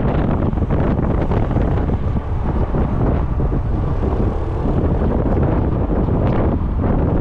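Wind buffeting the microphone of a GoPro camera on a moving scooter: a loud, steady rumble, with the scooter's engine running underneath.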